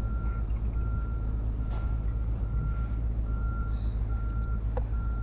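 Vehicle reversing alarm beeping at a steady pitch about once a second, over a steady low engine rumble.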